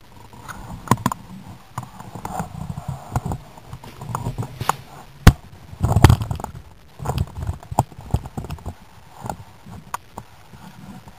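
Irregular knocks, clicks and clunks of objects being handled, with a sharp knock about five seconds in and a heavier thump just after it.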